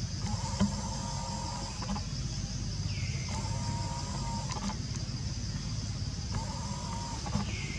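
Steady low, evenly pulsing engine rumble, with a high steady drone over it and a short held call that comes back about every three seconds.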